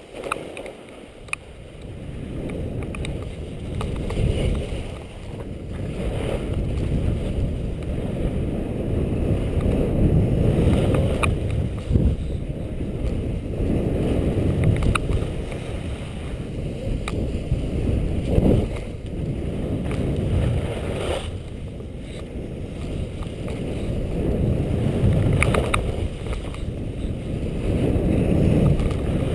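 Wind rumbling over a helmet-mounted camera's microphone as the wearer skis downhill, with the skis running over the snow. The rumble swells and eases every few seconds, with a few sharp clicks.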